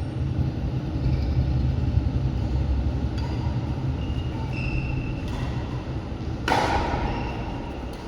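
Badminton rally over a steady low rumble: a few short shoe squeaks on the court, then one sharp racket strike on the shuttle about six and a half seconds in.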